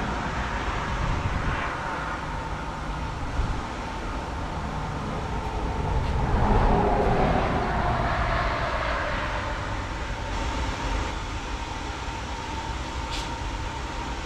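Low, steady rumble of passing motor traffic, with one vehicle swelling louder and falling in pitch as it goes by about six to nine seconds in.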